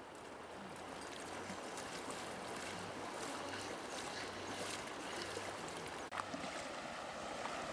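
Steady rush of a shallow river, with soft sloshing of legs wading through the water. The sound drops out briefly about six seconds in.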